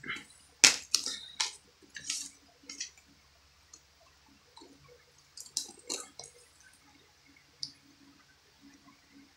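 Plastic Blu-ray case being handled and opened: a run of sharp clicks and snaps in the first three seconds, the loudest well under a second in, then a few more clicks about five and a half to six seconds in.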